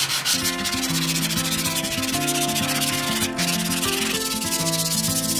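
Hand sanding a painted beam in quick back-and-forth strokes, the light sand that prepares its surface for bonding a batten. Acoustic guitar music comes in underneath about half a second in.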